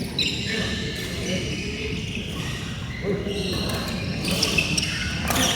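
Sounds of a doubles badminton game: short high shoe squeaks on the court floor and sharp racket hits on the shuttlecock near the end, over a busy background of voices in a hall.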